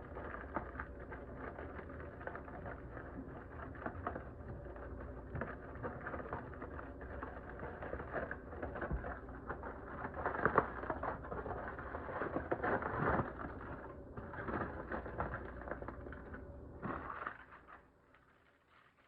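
Aluminium foil and parchment paper crinkling and crackling as a foil-wrapped chicken is peeled open by hand. Louder crackles come about halfway through, and the sound dies away shortly before the end.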